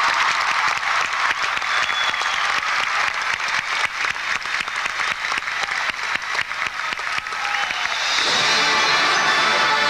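Crowd applauding, then about eight seconds in a marching band starts playing, holding steady notes.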